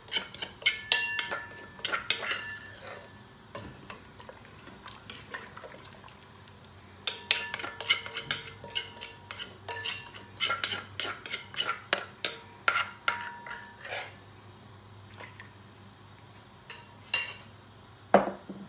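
A spoon clinking and scraping against a cooking pot in quick runs, with the pot ringing faintly: three spells, the first at the start, a long one in the middle, and a short one near the end.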